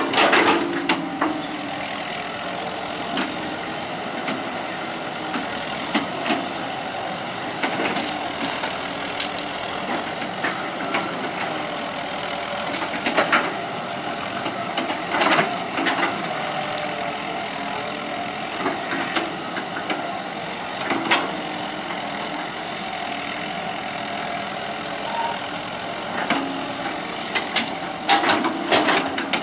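Hitachi EX120 hydraulic excavator's diesel engine running steadily with a rattle, broken by several sharp metallic knocks from the machine at work.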